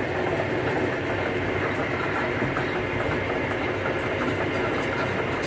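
Engine of a borewell drilling rig running steadily, an even drone that neither rises nor falls.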